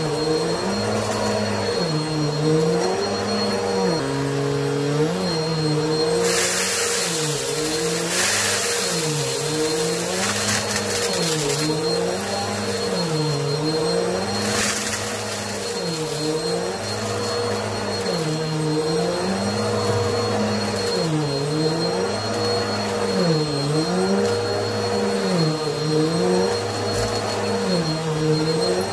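Upright bagless vacuum cleaner running on carpet. Its motor pitch dips and rises with each push-and-pull stroke, about every second and a half. Twice, about six seconds in and again around fourteen seconds, there is a brief hissing crackle as debris is sucked up.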